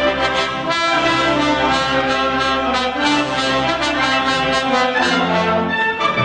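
Brass band music, with trumpets and trombones playing together.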